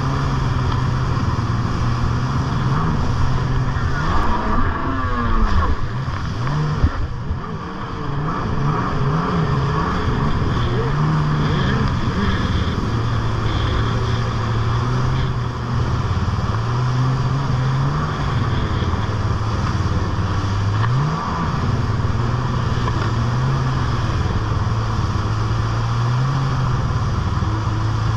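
Stand-up jet ski's engine running at speed, its pitch rising and falling again and again as the throttle is worked, over the rush of spray and wind. Around four to eight seconds in the pitch swings up and down several times in quick succession and the level briefly dips.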